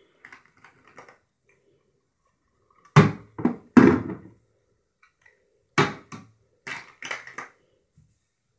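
Plastic toy food pieces knocking and clattering as they are dropped into a plastic toy bucket, in two bunches of sharp knocks, the loudest about three seconds in.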